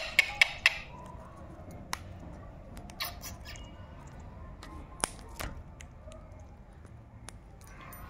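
Rose-ringed parakeet biting and pecking at a piece of guava: a quick run of sharp beak clicks in the first second, then scattered single clicks.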